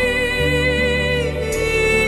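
Slow background music with long held notes over a low bass line; the bass changes about half a second in and again about a second and a half in.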